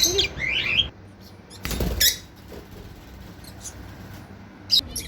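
African lovebirds giving quick, high squeaky chirps, several in a row in the first second, then a short louder harsh burst about two seconds in, and a few brief sharp chirps near the end.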